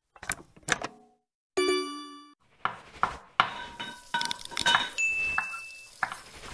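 Sound effects for a subscribe-button animation: two quick mouse clicks, then a single ringing bell ding. Then a run of kitchen clatter — pots, pans and utensils clinking and knocking — with a steady high beep for about a second near the end.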